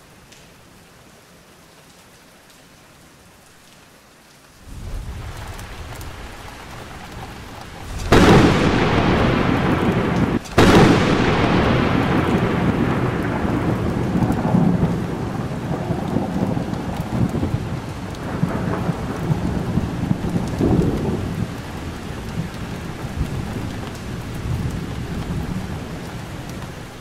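Thunderstorm: faint steady rain, then rolling thunder building about four and a half seconds in. Two sharp thunderclaps about eight and ten and a half seconds in are the loudest moments, and the rumble that follows slowly dies away.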